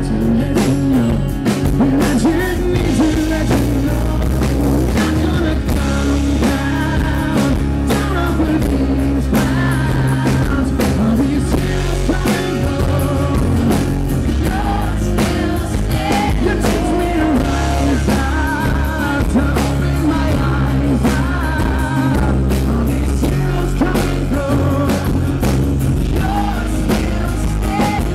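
Live acoustic rock performance: a man singing into a microphone over strummed acoustic guitars, amplified through a PA.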